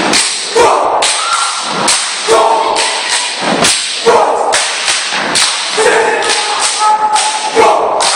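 Step routine: sharp hand claps and body slaps with foot stomps on a stage floor, struck in rhythmic patterns with short shouts in between.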